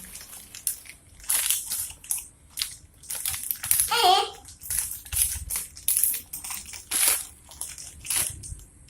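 Plastic wrapping crinkling and rustling in repeated short bursts as a toy package is unwrapped by hand, with a brief vocal sound about four seconds in.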